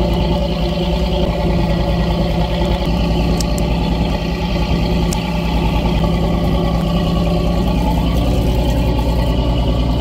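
Fishing boat's engine running steadily under way, a deep, even drone. Two faint clicks come about a third and halfway through.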